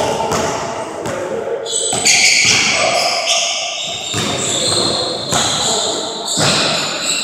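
Basketball bouncing on a hardwood gym floor, several thumps about a second apart that echo in the large hall. Shifting high-pitched ringing tones sound over them.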